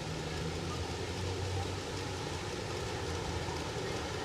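City street ambience: a steady traffic rumble with the low hum of a nearby engine running.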